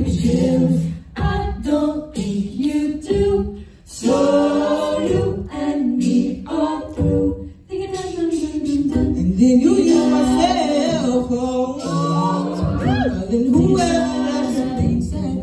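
Female a cappella group singing in harmony, several voices together with no instruments, with a few short breaks between phrases.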